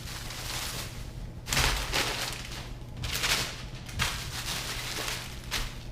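Packing material, such as bubble wrap, rustling and crinkling in several bursts as a packed item is unwrapped by hand, with a sharp click about four seconds in.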